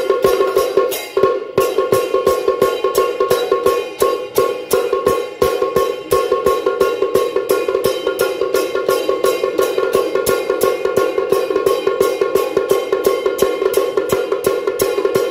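Temple-procession gong-and-drum percussion: drum, gongs and cymbals struck in a fast, steady beat of about four strokes a second, the gongs ringing on between strokes.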